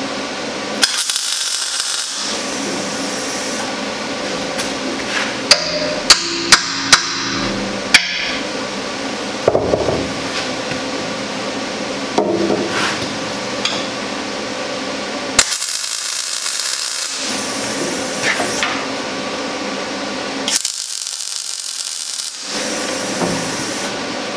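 Hammer knocking on steel: four sharp strikes in quick succession a few seconds in and single knocks elsewhere, over a steady shop hum.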